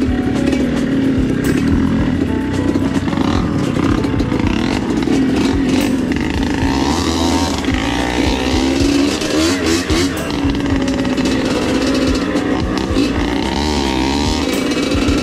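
Dirt bike engine running under a rider on a trail, its revs rising and falling.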